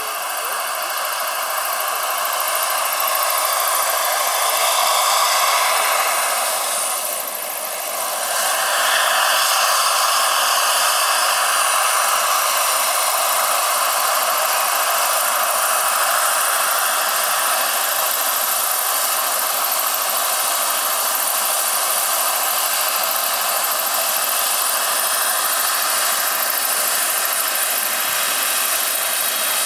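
GP70 turbine and twin intermeshing rotors of a large coaxial K-MAX scale model helicopter, running as a steady high whine and rushing noise while the model flies low and hovers. The sound dips briefly about seven seconds in, then comes back louder and holds level.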